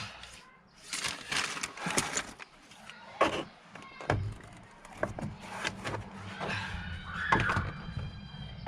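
Plastic trim tools clicking, knocking and scraping against a car door card as its clips are pried, with a short squeak about seven seconds in.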